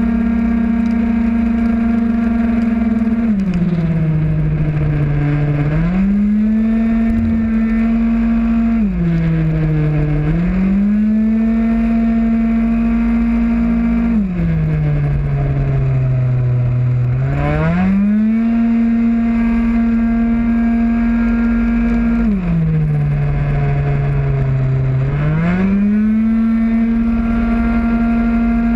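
Onboard sound of a Mach G Proto 50cc racing scooter's small two-stroke engine at high revs. It holds a steady high pitch, then drops four times as the rider backs off for corners, rising again each time it accelerates out.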